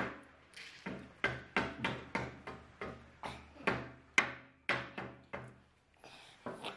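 Rapid repeated knocking on a hard surface, about three sharp knocks a second, each with a short ring. The knocking stops about five and a half seconds in, with a couple of faint taps near the end.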